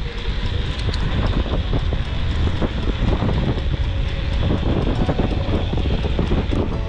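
Wind buffeting the microphone with a deep rumble, mixed with rapid rattling and knocking from a mountain bike riding over rough ground.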